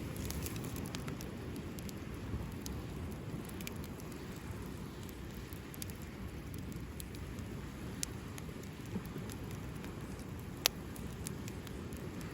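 Campfire burning with a steady low rumble and scattered crackles, and one sharp pop near the end.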